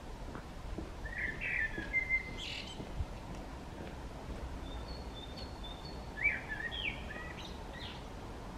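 Male Eurasian blackbird singing: two fluty song phrases, one about a second in and one about six seconds in, each ending in higher notes.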